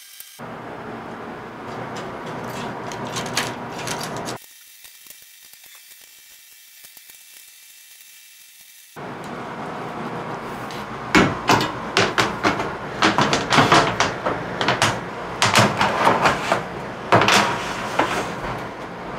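Hand assembly of a CNC machine's aluminium frame: metal rails and hardware knocking and clattering, with Allen-key work on the bolts. A run of sharp knocks and clicks sets in about halfway through. The sound level changes abruptly a few times.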